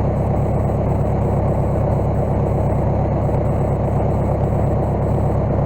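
Case skid steer engine running steadily at an even, unchanging speed.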